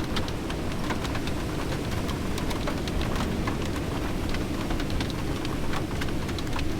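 Rain falling, with many quick, irregular drop ticks over a steady low rumble.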